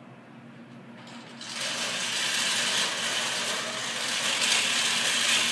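FRC competition robot's electric drive motors and gearboxes whirring loudly as it drives across carpet, starting about a second and a half in.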